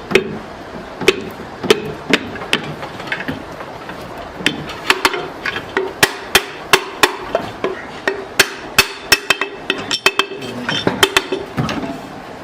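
Hand hammer tapping repeatedly in a ceiling-fan workshop, in irregular sharp strikes a few per second that come thickest in the middle, over a steady hum.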